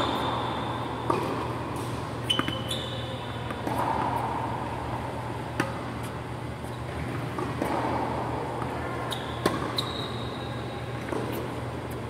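Tennis rally on an indoor hard court: sharp pops of racket strikes and ball bounces every second or few, some with short high squeaks of tennis shoes on the court. A steady low hum runs underneath.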